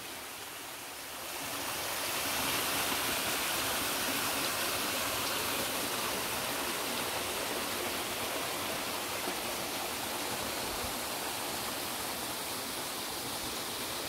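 Mountain stream running over rocks and small cascades: a steady rushing of water that swells a little about a second and a half in, then holds even.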